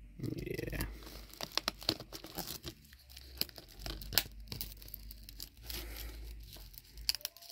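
Plastic shrink-wrap on a Blu-ray case crinkling and crackling as hands grip and turn the case, an irregular run of small crackles.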